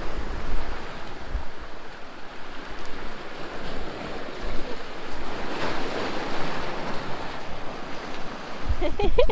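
Small waves washing in and breaking over rocks along the shore, a steady hiss of surf that swells a little about halfway through. Wind gusts rumble on the microphone.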